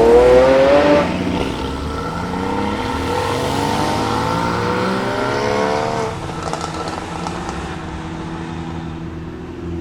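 A supercar engine accelerating hard, its pitch climbing, with an upshift about a second in and a second gear pulling until the note drops away about six seconds in. A few short pops follow, then a steady, quieter engine note from another car.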